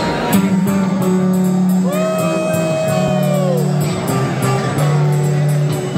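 Punk rock band playing live over a loud PA, with long held bass notes under a steady cymbal beat. About two seconds in, a high note slides up, holds, and falls away.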